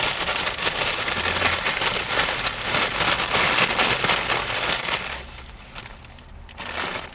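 Brown paper takeaway bag rustling and crinkling as hands open it and pull out paper-wrapped burgers; the crackling is dense at first and dies down about five seconds in.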